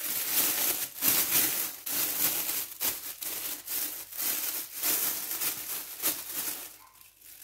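A thin clear plastic bag crinkling and rustling as it is handled and opened out by hand, with sharp crackles throughout, dying down near the end.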